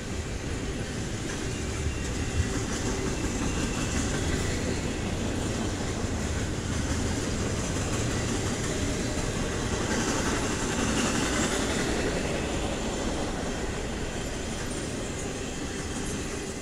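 Double-stack container freight train passing close by: the steady noise of its steel wheels running on the rails, with one sharp click about two seconds in.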